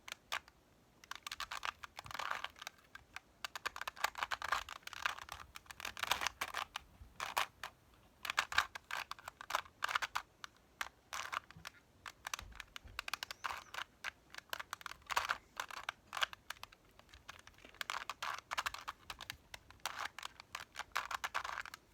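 Plastic Rubik's cube being twisted by hand: rapid clicking and clacking as its layers turn, in bursts of a few seconds with short pauses between.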